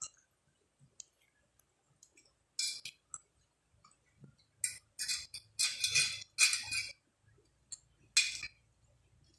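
Eating sounds close to the microphone: about six short scraping, clinking bursts, several bunched together in the middle.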